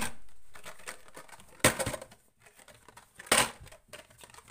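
Three short, sharp sounds of cardboard-and-plastic Hot Wheels blister packs tearing open, about a second and a half apart, the first trailing off slowly.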